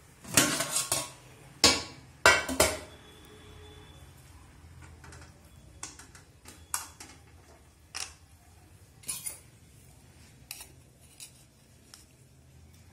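Aluminium steamer lid and pot clanking as the lid is lifted off: a few loud metal clangs in the first three seconds. After that come scattered lighter clinks of steel on steel as the perforated steaming plate and a steel spoon are handled.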